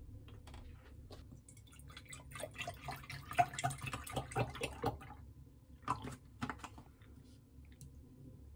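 Milk glugging out of a carton into a glass: a run of uneven gurgles and splashes lasting about three seconds, followed by a couple of light knocks.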